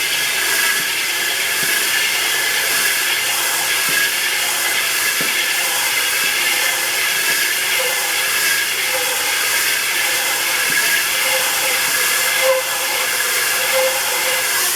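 Steady hissing rasp of 120-grit sandpaper on a flat MDF sanding board pressed against a glued-up segmented ring spinning on a wood lathe at about 570 RPM, with faint steady lathe tones under it. The segment faces are being sanded flat until the chalk marks showing the high spots are gone.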